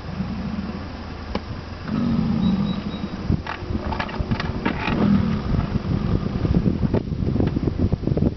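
American bison bellowing, a low drawn-out call three times: at the start, about two seconds in, and about five seconds in. Wind gusts on the microphone in the second half.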